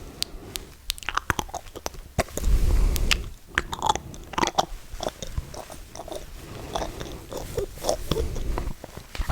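Close-miked ASMR mouth sounds: irregular wet clicks, tongue clicks and lip smacks right at the microphone, with a brief low rumble about two and a half seconds in.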